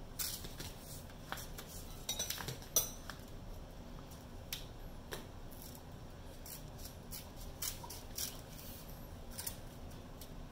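Irregular light clicks and taps, with a cluster of sharper ones a little after two seconds and the loudest about three seconds in.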